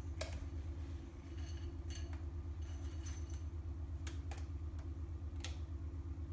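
Light clicks and clinks of a small handheld bowl as crushed Oreo cookie pieces are picked from it by hand and placed on the ice cream mixture, a handful of separate taps, over a steady low hum.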